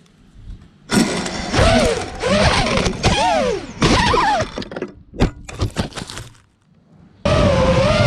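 FPV racing quadcopter's brushless motors and propellers whining, the pitch sweeping up and down with the throttle, broken by sharp cracks and knocks of crashes and prop strikes. The sound drops out briefly, then the motors come in loud again near the end.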